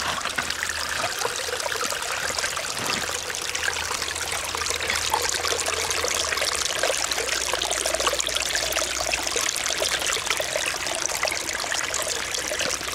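Shallow flood runoff trickling and babbling steadily over rocks and gravel in a washed-out gully, heard up close.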